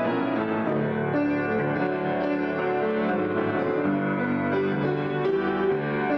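Solo grand piano being improvised on, a continuous flow of full chords and moving notes centred in the middle and lower range.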